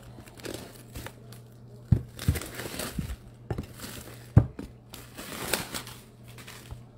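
Shrink-wrapped cardboard trading-card box being picked up and handled: the plastic wrap crinkles and rustles, with several sharp knocks of the box, the loudest about four seconds in.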